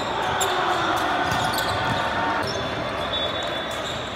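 Indoor volleyball rally on a hardwood gym court: sneakers squeaking on the floor and the ball being struck several times, in the echo of a large gym.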